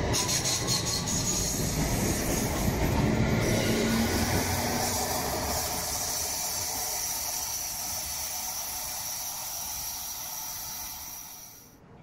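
Light-rail tram pulling out of a platform and moving away, its rolling rumble slowly fading, with a high steady squeal or whine over it. The sound cuts off suddenly near the end.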